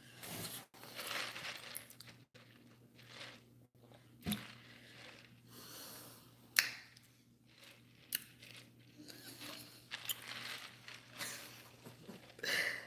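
Rustling and handling noises with a few sharp clicks and a low thump, over a faint steady low hum.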